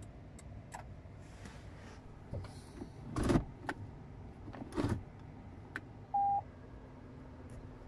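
Automatic gear selector of a 2019 Proton Saga being moved through its gates with several clunks over the idling engine, then one short electronic beep about six seconds in as the car goes into reverse.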